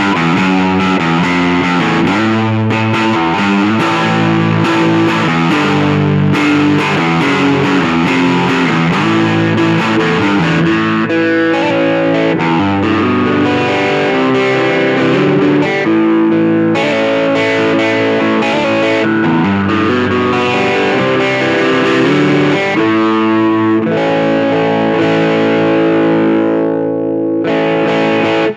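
Stratocaster with Seymour Duncan P-Rail pickups played through a small Nux Mighty Lite BT amp with distortion, a run of riffs and chords. Near the end a last chord is left to ring.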